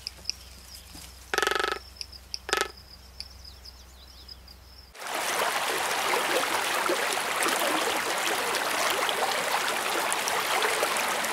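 Frigatebirds calling at a nesting colony: two short calls, with a faint high thin tone under them. About five seconds in, a steady, dense crackling hiss takes over and is the loudest sound.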